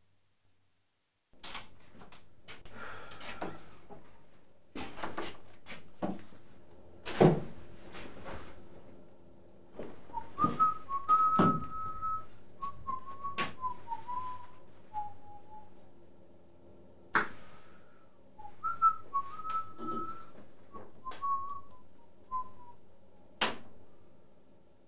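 Someone whistling a meandering tune, starting about ten seconds in and stopping a couple of seconds before the end, among several sharp thunks and knocks; the loudest thunk comes about seven seconds in.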